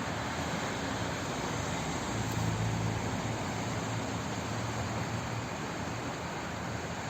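Flowing water making a steady, even rush, with a slight low swell a couple of seconds in.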